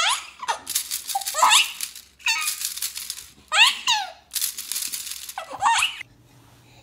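Baby giggling in bursts of high, squealing laughs, with plastic toy link rings rattling as they are shaken in front of the baby. The laughter stops suddenly near the end.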